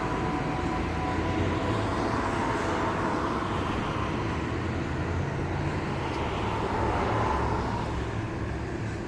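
A steady low rumbling drone with a faint wavering tone above it, heard as a strange noise coming from the sky.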